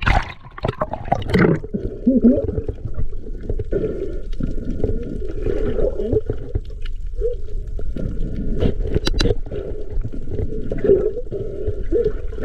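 Water gurgling and sloshing, muffled and continuous, with a few sharp clicks about nine seconds in.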